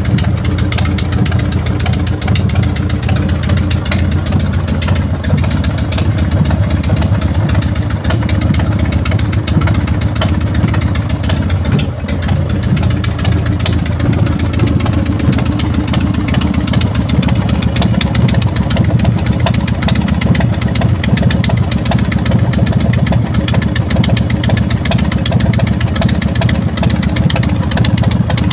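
Big Dog chopper's V-twin engine idling steadily as it warms up after starting.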